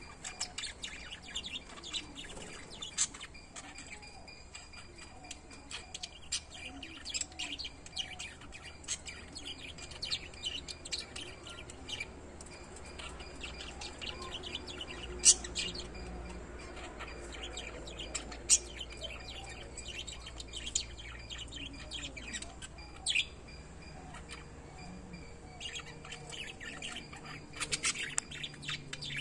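A pair of lovebirds chirping and chattering: a steady stream of quick, short, high chirps, with a few louder, sharper calls about halfway through.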